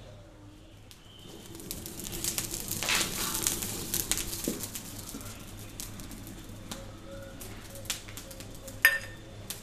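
Wood fire crackling in a clay stove, with faint bird calls behind it. A single sharp knock near the end.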